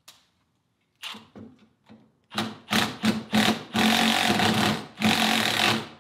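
Cordless drill running in a few short trigger pulls, then in two longer runs of about a second each, with a steady motor whine.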